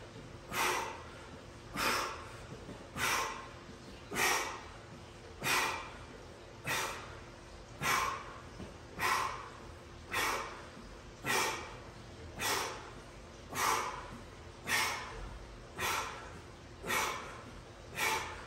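A man's short, hard exhales, one with each rep of a bent-knee crunch, coming evenly about once every 1.2 seconds, some sixteen in all.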